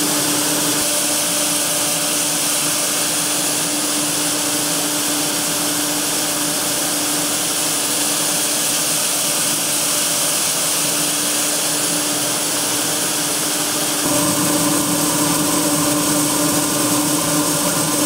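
Grain-handling machinery running with grain pouring through it: a steady mechanical whir over a hiss, with a steady hum. About fourteen seconds in the sound changes abruptly to a slightly louder, deeper running machine.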